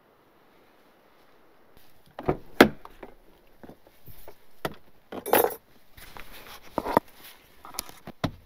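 Knocks, clunks and clinks as a Chevrolet Silverado pickup's rear door is opened and gear on the back-seat floor is handled. The sharpest knock comes about two and a half seconds in, after a near-quiet start.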